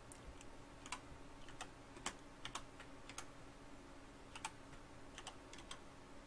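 Computer keyboard typing: a short run of single key clicks, unevenly spaced and faint.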